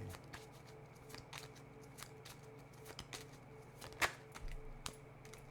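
Tarot cards being handled and laid down: scattered light clicks and flicks of the cards, with one sharper snap about four seconds in.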